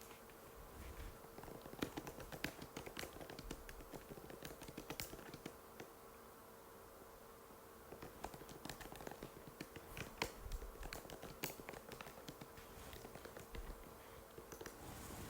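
Typing on an Apple MacBook butterfly keyboard: quick runs of light key clicks, broken by a pause of about two seconds midway, over a faint steady hum.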